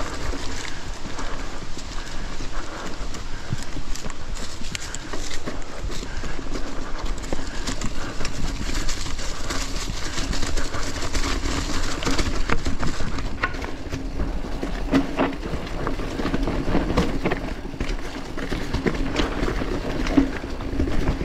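Mountain bike riding a technical trail strewn with fallen leaves: tyres rustling and crunching through the leaves, with frequent knocks and rattles from the bike over rough ground. The clatter gets heavier about two thirds of the way through.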